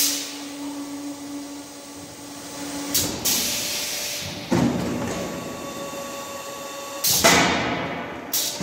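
Automatic silage bagging machine working through its cycle: its mechanisms clunk several times, each clunk followed by a hissing rush, with a steady hum that stops about three seconds in.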